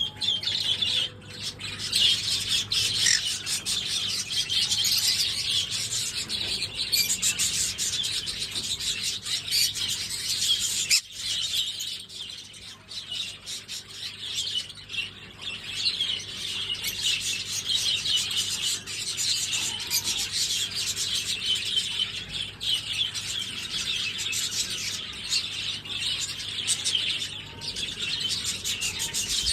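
Green-cheeked conure chirping and chattering: continuous high-pitched twittering, broken by a brief pause about eleven seconds in.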